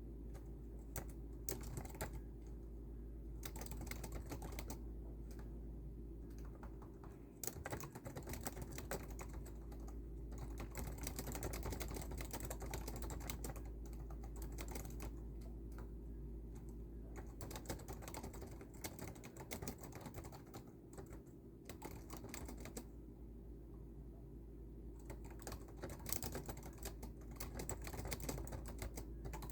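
Typing on a computer keyboard: uneven runs of keystroke clicks with a few brief pauses, over a steady low hum.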